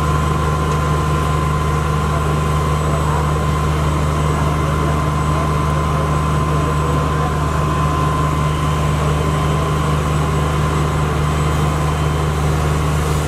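Fire engine's engine running steadily at the scene, driving its pump to supply the hose line. It makes a constant low drone with a steady high whine on top.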